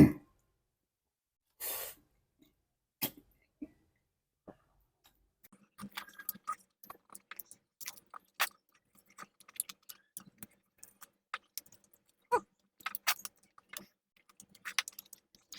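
Eating sounds close to the microphone: scattered small clicks, smacks and chewing noises with silences between, and a short breath or exhale about two seconds in.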